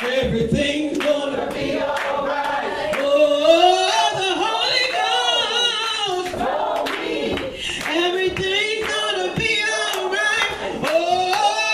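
A woman leads a gospel song in sustained sung phrases, with other voices joining in and hands clapping along.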